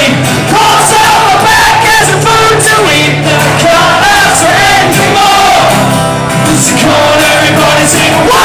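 Live rock band playing loudly in a concert hall: a singer sings a melody over guitar and steady bass notes, with the crowd's voices shouting and singing along.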